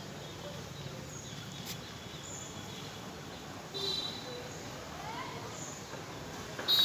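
Outdoor background noise with scattered short bird chirps, a brief brighter call about four seconds in, and a louder shrill bird call starting just before the end.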